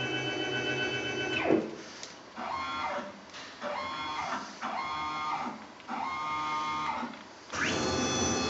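Stepper-motor-driven axes of a flatbed plotter converted to a CNC mill, whining as they move. A steady run winds down about a second and a half in, then come four short moves, each with the whine rising and falling at start and stop, and a louder move starts near the end.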